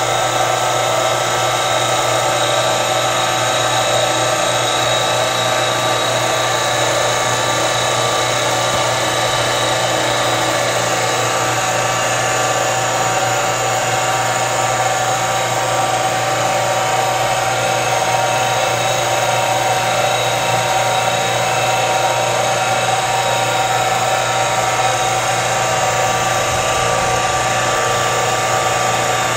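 Mini lathe running steadily with a constant motor whine while a cutting tool turns down the outside diameter of a metal bar.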